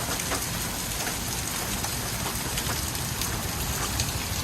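Heavy rain pouring down, with scattered sharp ticks of hailstones striking the ground a few times a second.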